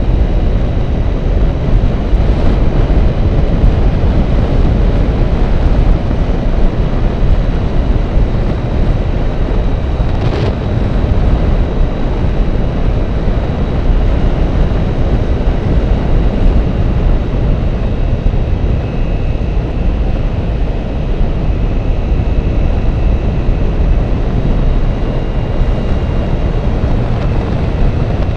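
Wind buffeting the microphone of a camera moving along a paved road, heard as a loud, steady low rumble.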